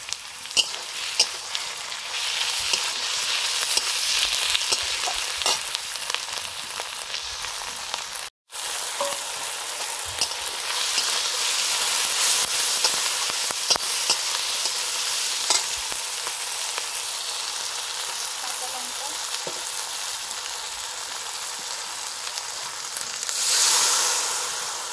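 Onions and ginger, cumin and coriander paste frying in ghee in a metal wok, sizzling steadily while a steel spatula stirs and scrapes, with scattered clicks of the spatula on the pan. Near the end a louder hiss rises as liquid hits the hot pan and steams.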